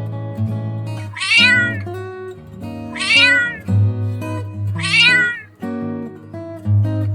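Domestic cat meowing three times, each call about half a second long and about two seconds apart, over steady background music.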